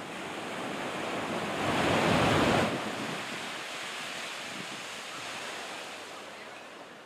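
Small waves breaking and washing up a sandy beach, with wind buffeting the microphone. The sound swells to a louder rush about two seconds in, then settles to a softer, steady wash.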